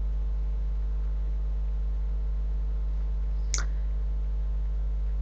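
Steady low electrical hum on the recording, with one short click about three and a half seconds in.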